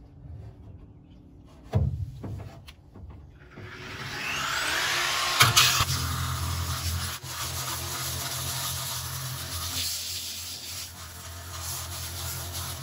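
Angle grinder with a 36-grit sanding disc starting up about two seconds in, then grinding a fiberglass boat transom: a steady motor hum under a loud, coarse rasping hiss as the disc roughs the surface so resin will bite.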